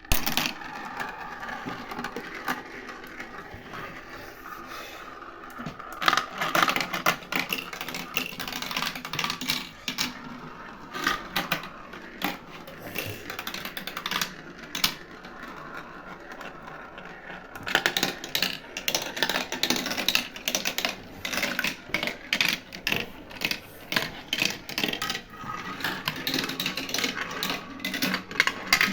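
Marbles running through a Gravitrax marble run: a steady rolling sound under many small clacks as the marbles hit the track pieces. The clacking grows busier about six seconds in, and from a little past halfway it turns into a rapid run of clicks.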